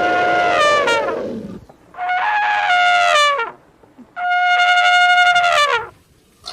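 Elephant trumpeting: three loud blasts in a row, each held on a steady high note for about a second and a half and bending down in pitch as it ends.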